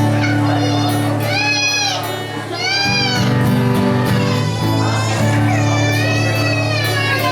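Live acoustic guitar music with sustained low notes, and over it a high melody line whose notes swoop up and down.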